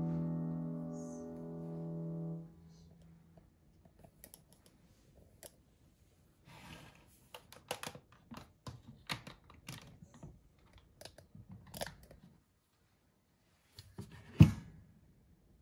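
Small plastic clicks and handling sounds from an electric kettle as its lid is opened and moved, ending with one sharper knock near the end. Soft piano music fades out in the first couple of seconds.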